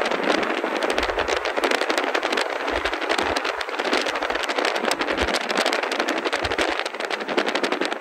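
Steady rush of wind and road noise from a car travelling at speed, with dense crackling of wind buffeting the microphone.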